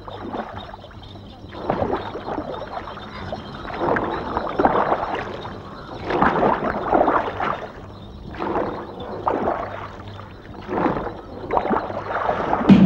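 Water sloshing and washing in irregular surges, one every second or two.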